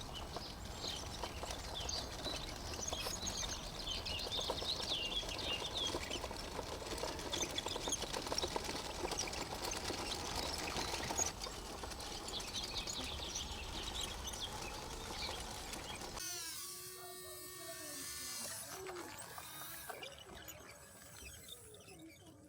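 Small birds chirping and singing over a steady outdoor noise bed. About sixteen seconds in, the sound changes abruptly to a few sweeping tones and then grows quieter.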